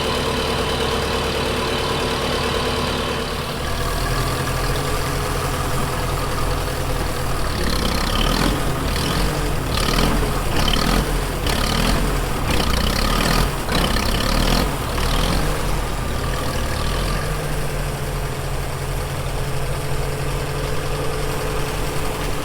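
Truck engine idling steadily, with a rougher, pulsing stretch in the middle before it settles back to a steady hum.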